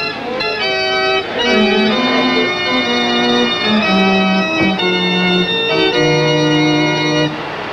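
Organ music: sustained chords changing every half second to a second over a moving bass line.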